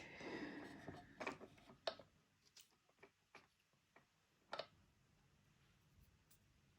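Faint, irregular light clicks and taps of small parts and tools being handled while a device is put back together, about seven spread over the first few seconds.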